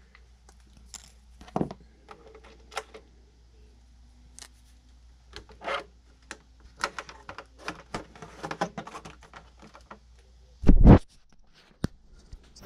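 Scattered clicks, scrapes and rustles of objects being handled, with one loud thump about eleven seconds in.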